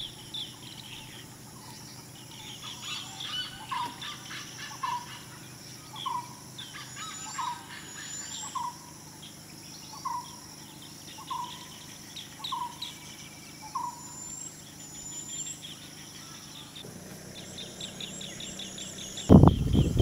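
Birds chirping: the high twittering chatter of a flock of green bee-eaters, with a separate lower falling call note repeated about once a second through the middle. A loud low rumbling noise breaks in just before the end.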